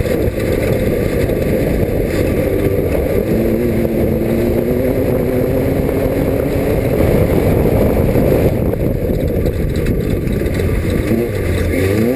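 Class 5 off-road race car engine running hard at fairly steady revs under heavy rumbling noise. Near the end its pitch swings quickly up and down as the revs rise and fall.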